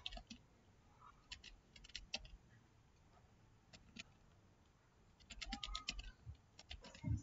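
Computer keyboard keystrokes, faint and scattered, with a quick run of keys about five seconds in as a short word is typed.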